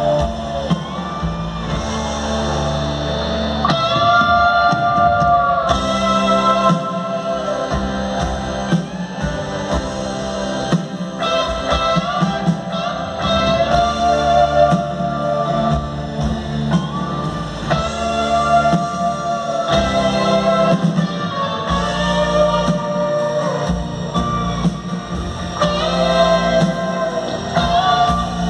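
Live rock band playing in an arena, led by electric guitar holding long notes that bend in pitch, over bass and drums.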